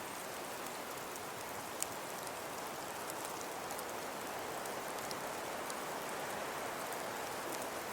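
Falling snow with scattered flurries: a steady hiss with small ticks of flakes landing, and one sharper tick about two seconds in.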